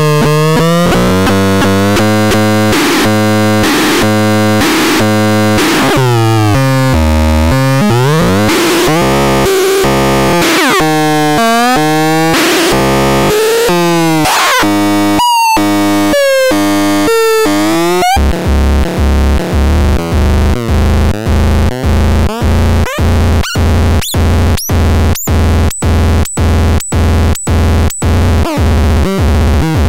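Electronic synthesizer tones sliding up and down in pitch for about the first eighteen seconds. Then a steady low buzzing drone takes over, chopped by rhythmic cut-outs that speed up.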